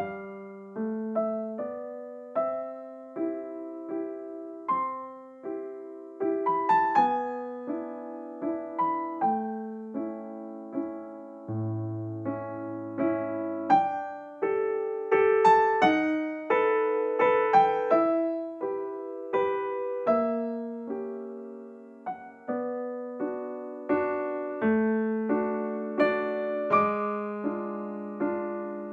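Background piano music: a gentle melody of struck notes over chords at an unhurried pace.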